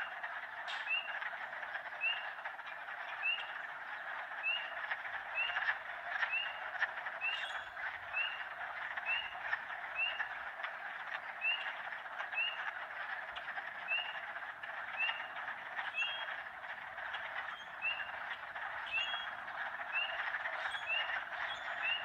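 Wetland frog chorus of spring peepers and toads: a dense, steady wall of calls, with one nearby spring peeper's short rising peep standing out about once a second.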